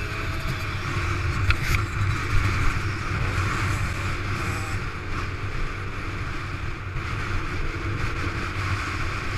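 Dirt bike engine running at a steady cruising speed, heard from a helmet-mounted camera, with wind rushing over the microphone.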